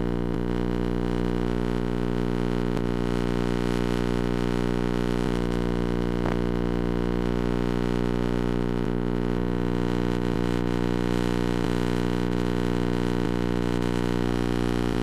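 Steady electrical hum with many overtones over tape hiss, from blank videotape being played back, with a few faint clicks.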